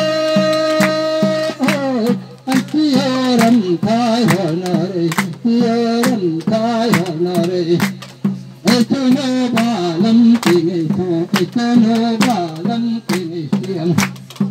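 Dance music: a voice sings a winding melody over a steady drum beat. Held instrumental notes play before the singing comes in, about a second and a half in.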